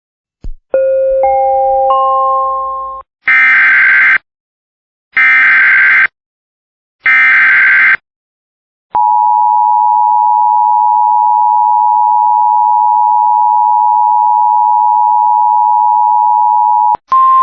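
Emergency Alert System tones: a rising three-note chime, then three roughly one-second bursts of screeching SAME header data, then the steady two-tone EAS attention signal held for about eight seconds. A brief higher single tone with a short burst comes right at the end.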